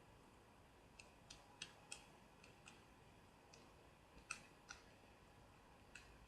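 About eight faint, irregular small clicks from a Torx screwdriver and the HTC G2 phone's case being handled as its tiny screws are taken out.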